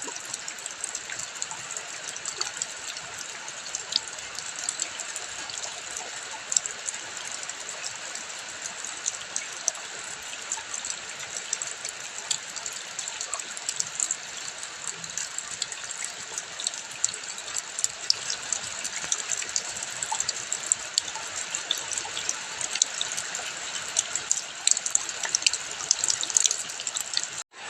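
Rain and running water: a steady hiss scattered with many sharp drop and splash ticks, cutting out for a moment near the end.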